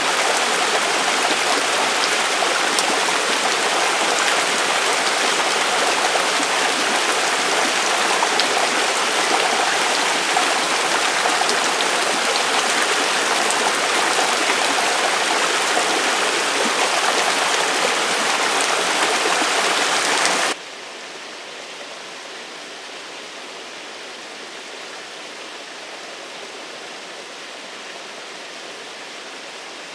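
Thermal spring water running over mineral-crusted rock, a loud steady rush of water. About two-thirds of the way through it cuts abruptly to a much quieter, steady water sound.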